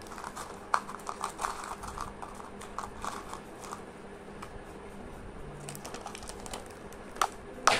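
Light clicks and crinkles from fingers handling a plastic snack cup and its peeled-back foil lid, with two sharper clicks near the end.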